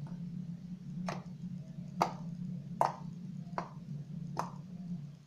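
Fluffy slime being poked with a finger, giving six sharp pops roughly once a second over a steady low hum.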